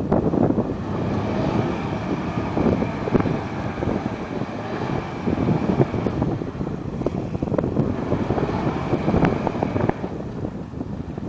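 Alvis Stalwart 6x6 amphibious truck's engine running hard under load as the stuck truck tries to drive out of deep mud, with a whine rising over it twice. Wind buffets the microphone.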